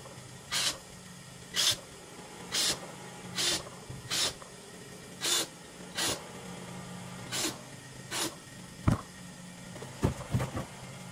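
Cordless drill run in short bursts, about one a second, boring tufting holes in upholstery foam; a sharp knock a little before the end and a few knocks near the end as the wooden frame is handled.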